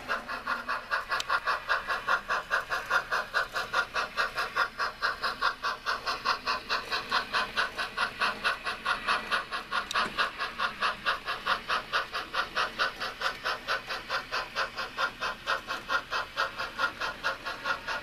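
Model railroad's automated warning bell ringing steadily and rapidly, about five strokes a second, without a break.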